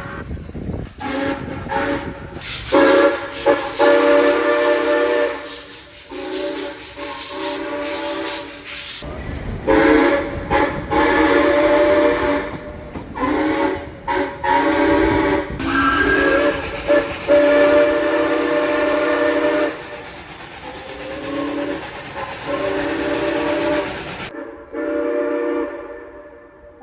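Heritage railway locomotive whistles and horns sounding a string of blasts, some short and some held for several seconds, each made of several steady notes at once. The background changes abruptly several times as one train's recording cuts to the next.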